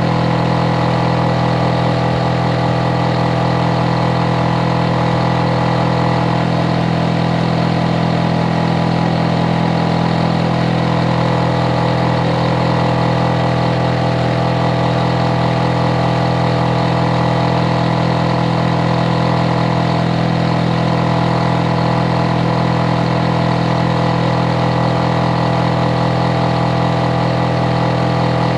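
Hitachi air-conditioner outdoor unit running, a loud, perfectly steady deep hum with several fainter steady higher tones above it.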